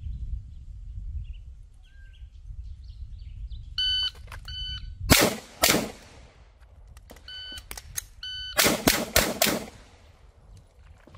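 An electronic shot timer's start beep, then two pistol shots about half a second apart. A gap of about three seconds follows, with another short beep in it, then four quick pistol shots. The long gap is a slide-lock reload, slowed because the empty magazine did not drop free.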